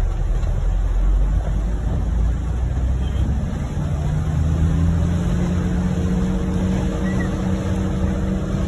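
Inside a vehicle driving in heavy rain: a steady low rumble of engine and tyres on the wet road with the hiss of rain and spray. From about four seconds in, a steady engine hum joins it as the vehicle keeps going.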